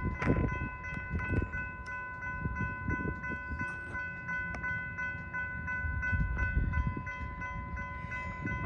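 Railroad grade-crossing warning bell ringing in a rapid, steady repeat of the same chiming tones, over a low, uneven rumble.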